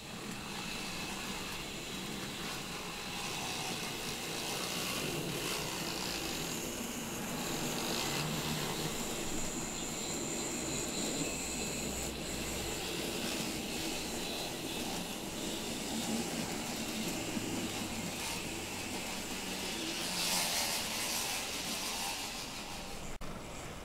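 Greenmax N-gauge model trains, Meitetsu 3100 series sets coupled together, running on the layout track: a steady motor hum and wheel noise that grows louder as the train comes near. A thin high whine is heard for a few seconds in the middle.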